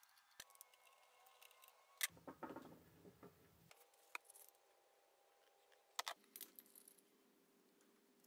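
Faint handling noise as a metal drill chuck and its taper arbor are unwrapped from a plastic bag: a few sharp metal clicks and clinks, the loudest about two seconds in and a pair around six seconds, with plastic rustling after each.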